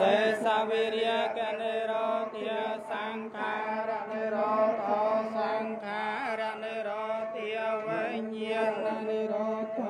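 Chanting voices over a steady droning tone that holds throughout, with no break.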